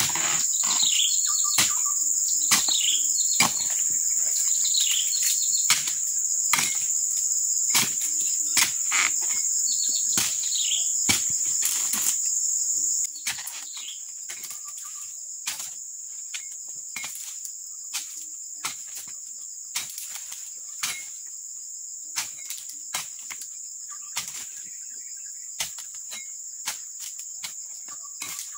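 Repeated sharp chops of a dodos chisel blade striking and cutting into oil palm frond bases, irregular and roughly once a second, over a steady high-pitched drone of insects that drops in level about halfway through.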